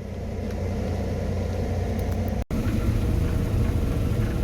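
Claas Lexion combine harvester running in the field, a steady low drone that slowly grows louder. It drops out for an instant about halfway through, then carries on slightly louder.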